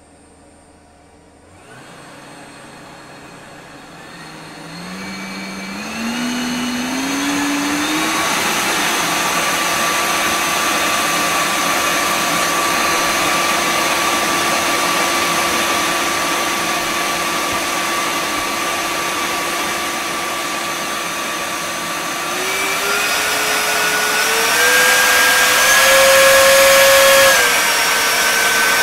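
Very loud electric supercharger, an LMT 3080 electric motor on an MGM 30 kW controller fed by LiPo packs, spinning up from rest about two seconds in. Its whine climbs in small steps over the next several seconds, holds steady over a rush of air, steps higher again near the end, then drops back a little.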